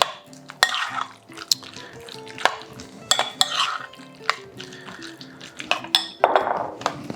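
A utensil stirring a soft mixture of chopped smoked salmon, cottage cheese and dill in a bowl, with scraping swishes and sharp knocks against the bowl every second or so. Background music plays under it.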